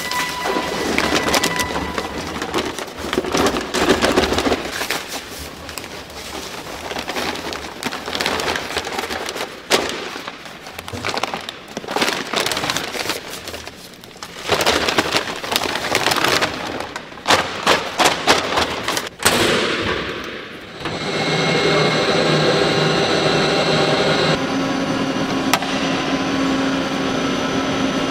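Paper flour sacks rustling and crinkling as flour is shaken out of them into a stainless-steel dough mixer. About three-quarters of the way through, this gives way to the mixer running with a steady machine hum.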